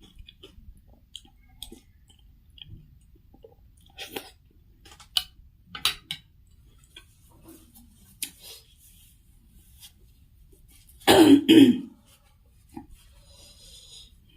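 Noodle-soup eating noises: small mouth clicks and short slurps. About eleven seconds in comes a loud two-part throat-clearing cough, the loudest sound here.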